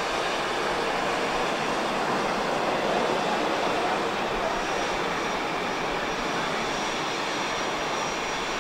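Boeing 777's twin jet engines at climb power: a steady, dense jet roar from an airliner climbing away after a touch-and-go.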